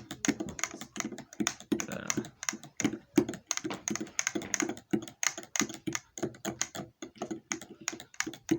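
Rapid, irregular clicking and tapping, several clicks a second without a break.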